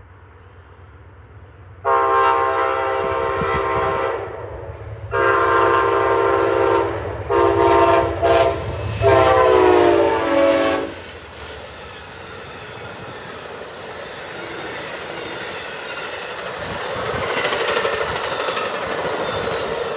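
Amtrak Lake Shore Limited locomotive horn sounding for a grade crossing: two long blasts, two short ones, then a final long blast that drops in pitch as the locomotive goes by. The train then rolls past with growing wheel-on-rail clatter.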